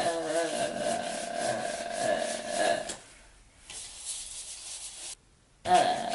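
Paintbrush scrubbing and dabbing acrylic paint onto paper on a wooden board, in quick repeated strokes. The scrubbing drops away about halfway through, comes back fainter, breaks off almost to silence briefly, then resumes strongly near the end.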